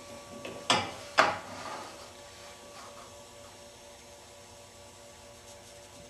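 Two sharp knocks about half a second apart as a table saw's miter gauge is reset to 90 degrees, then a faint steady hum with the saw switched off.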